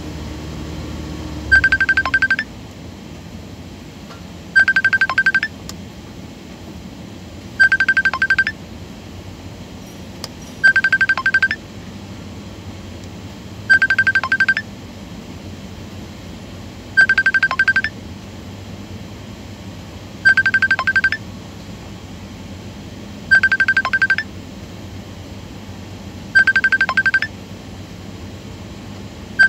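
Mitsubishi Pajero dashboard warning chime: a short burst of rapid high beeps repeating about every three seconds, over the steady low hum of the idling engine.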